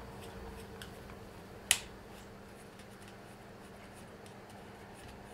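A single sharp click of hard 3D-printed plastic parts, about two seconds in, as the sight body is slid along its adjustment, with a few faint handling ticks and a low steady hum underneath.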